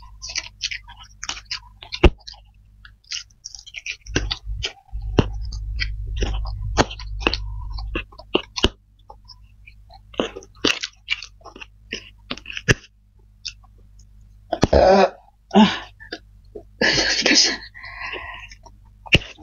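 Close-up chewing and wet mouth smacks from two people eating stir-fried flat rice noodles, with sharp clicks of forks. Near the end come two or three louder, rougher throat sounds, burps from the rich, spicy meal.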